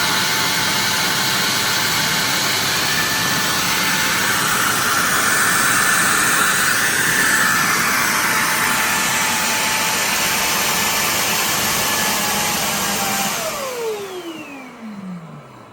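Eufy L60 SES robot vacuum's self-emptying suction running at full power with a steady whine, clearing hair cut from the roller brush. About 13 seconds in, it shuts off and spins down with a falling whine.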